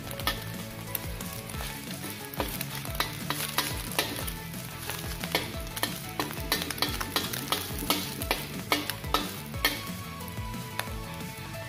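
An egg sizzling as it fries in hot oil in a metal wok, while a metal spatula scrapes and knocks against the pan to break it up, giving many sharp clicks throughout.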